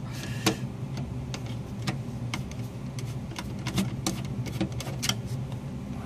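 Light, uneven ticks, about two a second, over a steady low mechanical hum.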